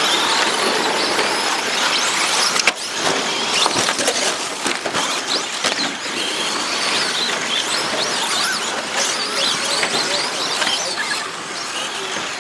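Several 2WD short course RC trucks racing, the whine of their electric motors and gearing rising and falling over and over as they accelerate and brake. There is one sharp knock nearly three seconds in.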